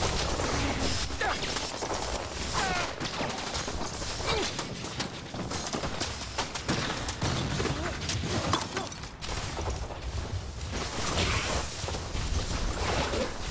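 Film sound effects of spell beams in a wizards' duel: a continuous electric crackling and sizzling, broken by sharp cracks and short whines that slide in pitch.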